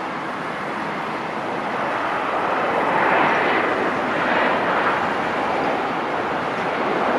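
Boeing 777-300ER's GE90-115B turbofans during the landing roll just after touchdown: a broad, rushing engine roar that swells about three seconds in and stays loud.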